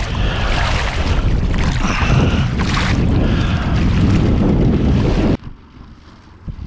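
Strong wind buffeting the microphone with a heavy rumble, cutting off abruptly about five seconds in to a much quieter background with a few faint ticks.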